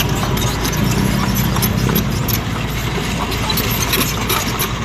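Komatsu PC78US compact crawler excavator travelling on asphalt: its diesel engine running steadily while the steel track links clank and click continually against the road.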